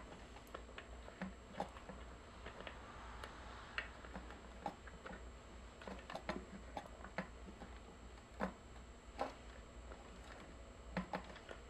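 Scattered small clicks and taps of hand tools, wires and small parts being handled while working on a speaker's crossover wiring, irregular and a few a second, over a faint steady low hum.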